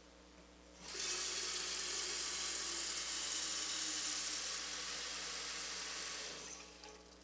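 Kitchen faucet running into a red enamel stovetop kettle as it is filled: a steady rush of water that starts about a second in and stops about a second before the end.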